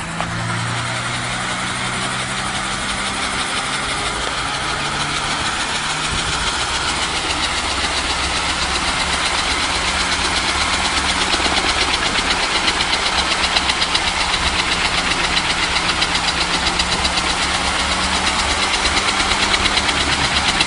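Engine of a home-built scrap-iron helicopter running with a rapid, even pulsing that grows gradually louder.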